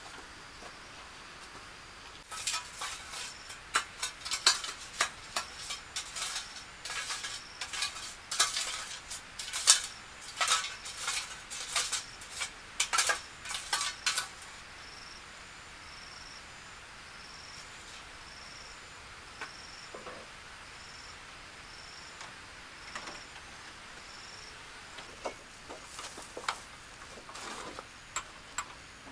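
A metal tool scraping and clinking in quick, irregular strokes for about twelve seconds. After that a faint high chirp repeats about once a second, with a few more clicks near the end.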